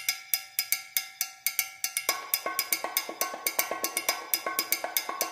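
A street percussion group playing in a marching crowd: a steady beat of sharp, ringing strikes, about three to four a second. More drums join in about two seconds in, filling out the beat.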